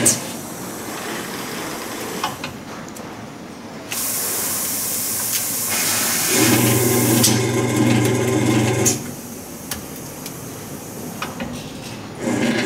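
Automatic circuit-board flipping conveyor running through a flip cycle. A sharp click sounds as it stops, and a steady hiss runs for about three seconds from the middle of the cycle. Motor hum follows, then small clicks, and the hum starts again near the end.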